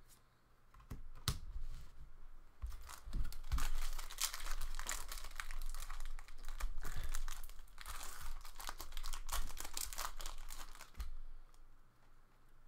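Trading card packaging crinkling and rustling as hands work it, with many small clicks. It starts about a second in, is loudest from about three seconds in, and stops near the end.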